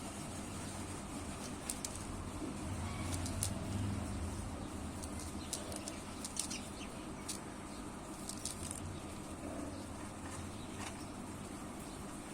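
Pet parrots moving about, with scattered sharp clicks and a flutter of wings.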